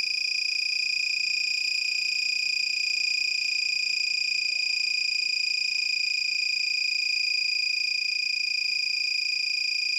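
Rain detector's buzzer sounding one steady high-pitched tone, set off by water bridging the tracks of its stripboard sensor plate.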